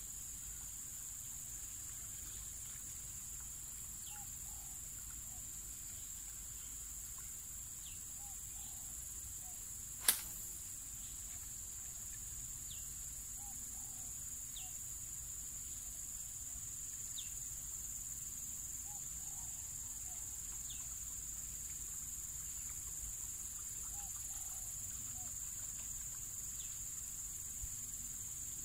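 Steady high-pitched insect chorus, with a single sharp click about ten seconds in and a few faint short chirps.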